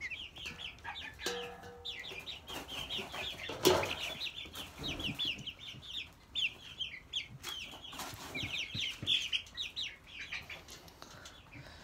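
A flock of young Plymouth Rock and Orpington chickens cheeping and chattering continuously in many short, high calls. A loud knock about four seconds in and a few softer knocks cut across it.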